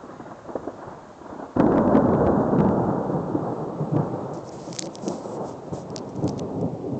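A clap of thunder breaks suddenly about a second and a half in, then rolls on as a rumble that slowly fades.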